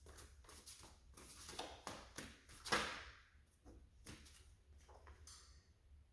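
Reading cards being shuffled and handled: a run of soft clicks and rustles, loudest about three seconds in.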